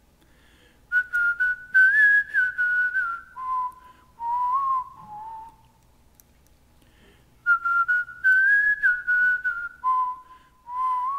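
A person whistling a melody unaccompanied, in two phrases with a short pause between them, the second starting about seven and a half seconds in.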